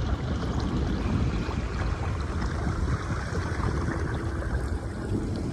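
Gusting storm wind buffeting the microphone: a continuous rumbling rush, heaviest in the deep low end and rising and falling in strength.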